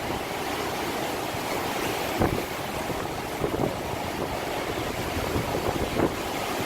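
Hurricane wind blowing hard and steadily, buffeting the phone's microphone with low rumbling gusts and a few brief bumps.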